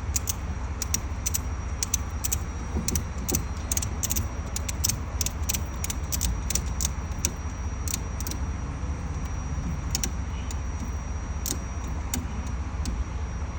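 Ratchet strap being cranked tight: a long run of irregular sharp metallic clicks as the ratchet handle is worked, over a steady low rumble.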